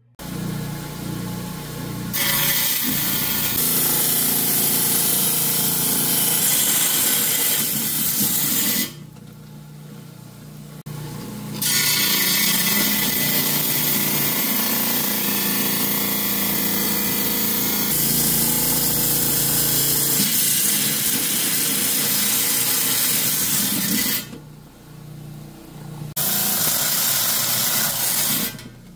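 10-inch Hi-Tech lapidary trim saw switching on and running, its wet blade cutting a slab from a red jasper block. A loud, steady cutting hiss sits over the motor hum while the stone is pushed through the blade. It drops back to the motor's hum alone twice for a couple of seconds, and again near the end, as the stone is eased off the blade.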